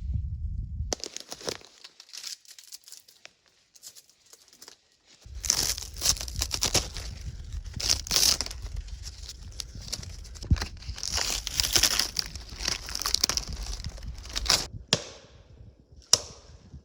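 Dry brush and dead twigs crunching and crackling in quick, irregular snaps, as dead wood is pushed through and broken for firewood, with a low rumble underneath from about five seconds in.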